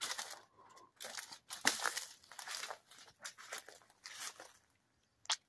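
Footsteps crunching on loose gravel ballast: a string of uneven crunches, about two a second, as someone walks along a rail yard track.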